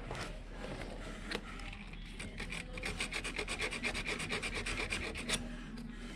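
Quick, even back-and-forth scraping of a hand tool on the starter solenoid's cable terminals, cleaning off dirt and corrosion. The strokes pick up about two seconds in and stop near the end.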